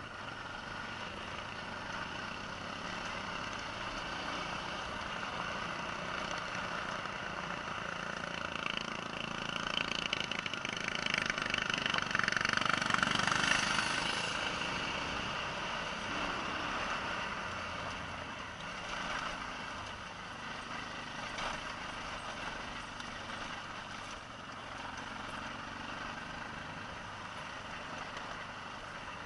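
An off-road vehicle's engine running as it climbs a loose gravel mountain track, mixed with tyre-on-gravel noise. The sound swells louder about ten seconds in, then eases off.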